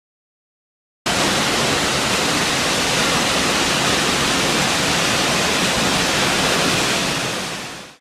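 Steady rushing of a 110-foot waterfall plunging into its pool. It starts suddenly about a second in and fades out near the end.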